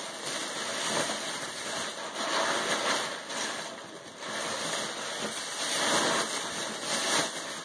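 Rustling and crinkling of paper and packaging as gifts are taken out, rising and falling in several swells.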